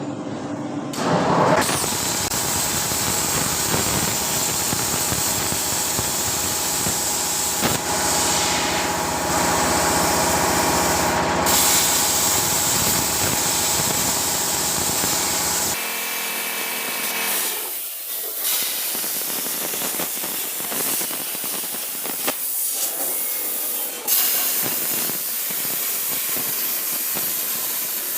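Steady hissing machine noise with a few steady tones; about two-thirds of the way through the sound changes abruptly and the low rumble drops away, with a few sharp clicks afterwards.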